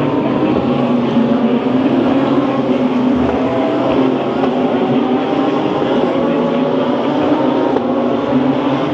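DTM GT3 race cars' engines running, a continuous drone of several overlapping engine notes whose pitch shifts slightly up and down.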